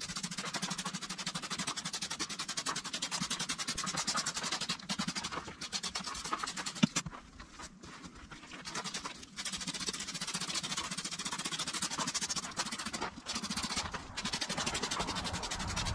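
Rigidizer being sprayed from a sprayer to saturate a forge's insulation blanket: a fast, even run of spray pulses that pauses for about two seconds midway and briefly again later.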